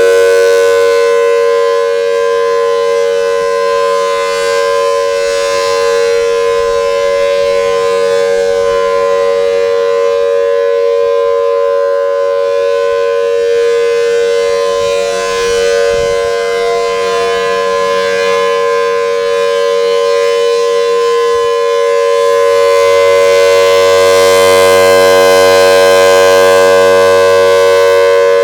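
Federal Signal Thunderbolt tornado siren sounding at full pitch, a loud steady chord with no rise or fall in pitch. It fades after the first couple of seconds and swells again near the end as the rotating siren head turns away from and back toward the listener.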